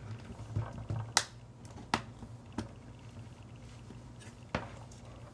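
Sharp clicks and taps of a laptop's plastic and metal parts being handled and pressed into place, about four distinct clicks spread over a few seconds, the loudest about a second in.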